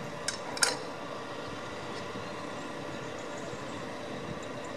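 Two sharp metallic clinks less than a second in, from the loader crane's hook and lifting rigging being handled, over the steady running of the crane lorry's engine.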